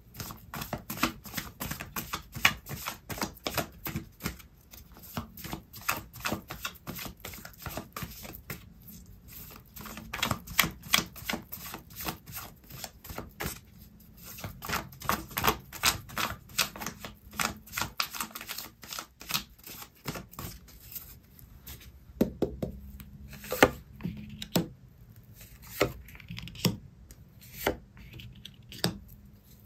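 A tarot deck being shuffled by hand: rapid, dense card clicks and flutters for about twenty seconds. After that come slower, separate taps and slides as cards are drawn and laid down on the table.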